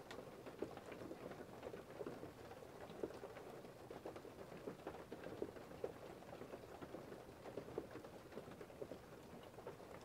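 Weather sound effect of precipitation, rain or ice, pattering on a surface: a dense, steady stream of small irregular taps, fairly quiet.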